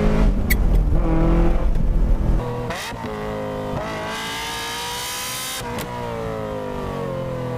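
Ferrari F355's V8 through a straight-pipe exhaust with the valves open: a loud running note with a sharp exhaust pop about half a second in, then the revs climbing for a couple of seconds, a crack as they peak, and the revs falling away.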